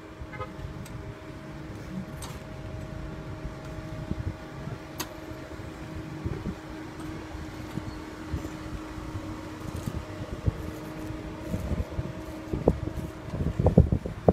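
Motorized shopping-cart scooter driving, its electric motor giving a steady hum, over low rumble and bumps that get louder near the end.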